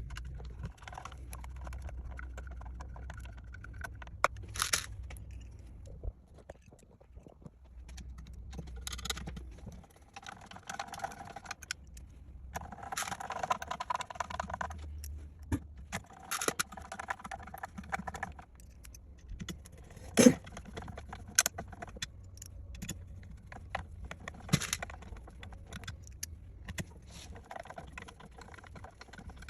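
Small metal hardware and parts clinking, rattling and scraping as tanks are fastened onto an RC bulldozer chassis, with scattered sharp clicks, the loudest about two-thirds of the way through. A low hum is present for the first third.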